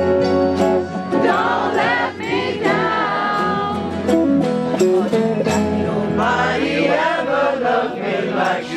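A crowd singing together, accompanied by a strummed acoustic guitar.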